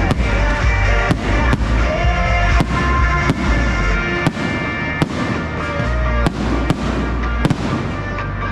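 Fireworks bursting in a quick series of sharp bangs, about one every half second to second, over loud pop music.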